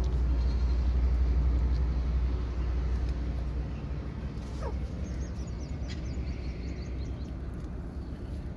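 A kitten gives a single short, falling cry about halfway through, over a steady low rumble that is loudest in the first few seconds.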